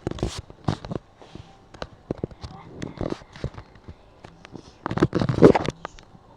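Packaging being handled and opened by hand: a run of clicks, rustles and crackles, with a louder, denser burst about five seconds in.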